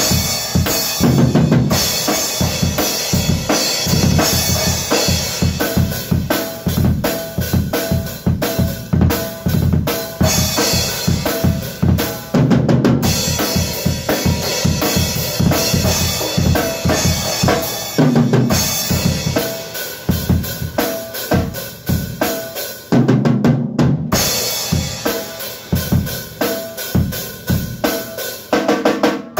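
Acoustic drum kit played in a fast, driving beat: bass drum, snare and cymbals struck in quick succession, with a short let-up near the end.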